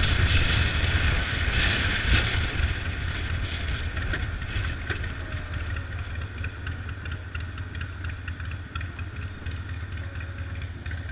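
Cruiser motorcycle engine running on the move, a steady low rumble with wind rush over it, growing gradually quieter.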